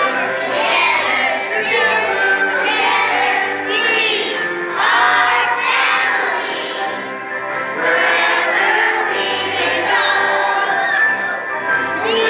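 A group of kindergarten children singing a song together over musical accompaniment.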